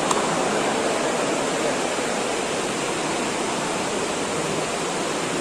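Steady hubbub of a spectator crowd in an indoor sports hall, blurred into an even wash of noise with no single voice standing out.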